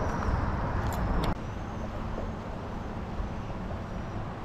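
Steady outdoor rumble and hiss with no speech, with two sharp clicks about a second in; the noise drops suddenly in level just after them.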